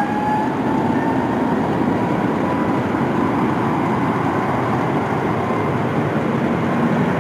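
Boeing 777 jet engines running loud during a rejected takeoff: a steady rush with a faint whine that rises slowly in pitch over the first few seconds.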